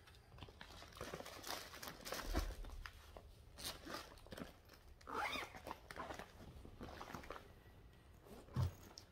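Faint rustling and crinkling of cross-stitch kit packaging and project bags being handled, with soft knocks about two and a half seconds in and again near the end.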